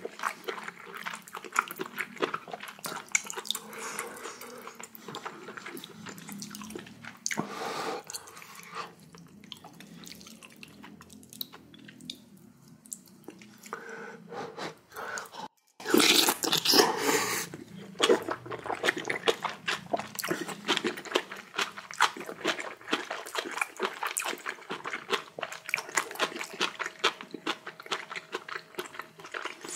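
Close-miked eating sounds: a person chewing rice, kimchi and sea mustard soup, with a steady run of wet mouth clicks and smacks. About halfway through there is a louder noisy stretch lasting about two seconds.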